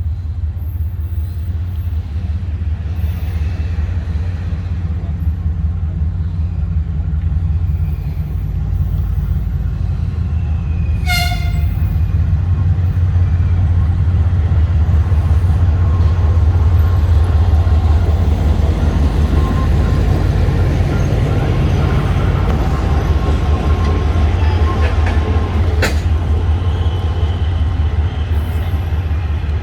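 2TE10UT diesel locomotive's two-stroke opposed-piston diesel engines running with a steady low rumble, with one short horn toot about a third of the way in. From about halfway the rumble and rail noise grow louder as the train moves.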